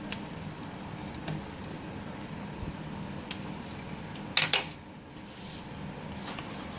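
Metal kitchen utensils clinking against a cooking pot: a few light clicks, then two sharp clatters close together about four and a half seconds in, over a steady low hum.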